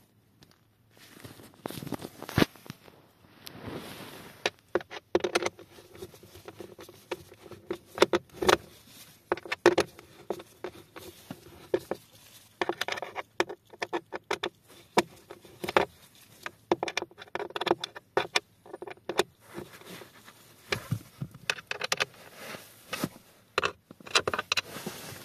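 Work on the blower motor housing under the dashboard: irregular runs of sharp clicks, knocks and rattles of plastic and metal as screws and clips are worked by hand.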